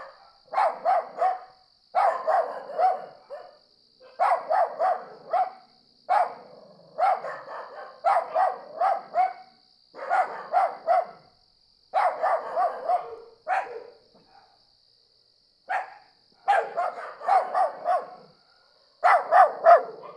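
A dog barking in repeated bouts of four or five quick barks, a bout about every two seconds with short pauses between, over a steady high, unbroken trill of crickets.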